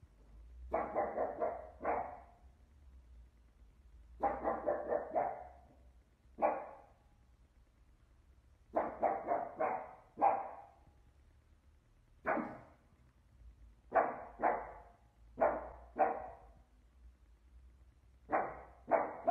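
Pug barking in quick volleys of two to five short barks, with a few single barks, separated by pauses of one to two seconds.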